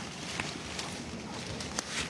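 Branches and leaves of a fallen tree rustling and crackling around a person pinned beneath it, with a few sharp snaps, over the noise of hurricane wind.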